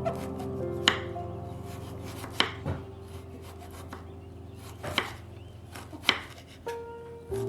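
Knife chopping on a cutting board: about six separate sharp knocks at uneven intervals. Soft background music with held notes plays underneath.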